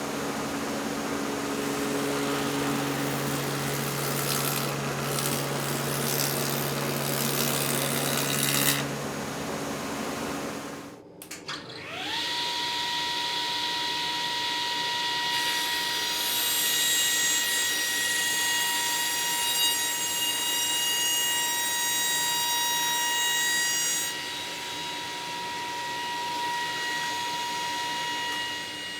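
Electric power tools running. A noisy tool runs for about ten seconds and stops. Then a motor spins up, its whine rising quickly to a steady high pitch that holds.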